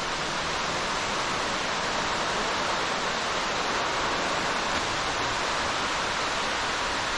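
Underground waterfall pouring down a deep cave pit: a steady, unbroken rush of falling water.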